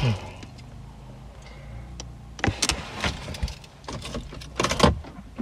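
Inside a car cabin, a knock right at the start as a mobile phone is set down on the centre console, then scattered small clicks and knocks of people shifting in their seats and handling things, over a low steady hum.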